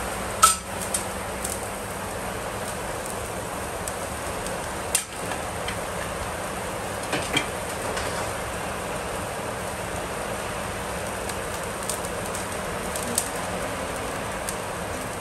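Raw bone-in beef chops sizzling on a grill over wood embers, a steady crackling hiss, with a few sharp clicks as the chops are laid on the metal grill bars.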